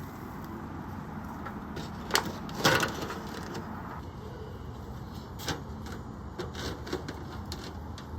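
Sharp knocks and clatters of cooking gear being handled at a homemade barbecue grill, the loudest about two and a half seconds in and a few lighter ones later, over a steady hiss.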